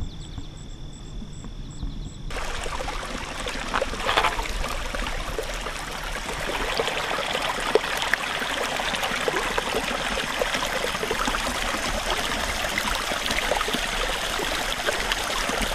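Water of a small rocky creek running over stones. It comes in abruptly about two seconds in, after a quieter start with a faint steady high whine.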